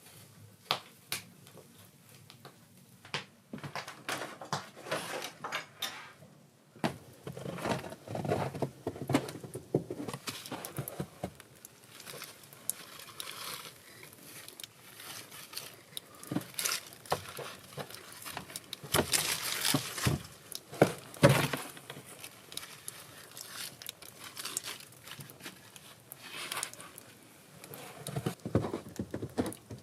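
Irregular handling noises: light clicks, knocks and clinks of small objects, with some rustling, starting a few seconds in and busiest about two-thirds of the way through.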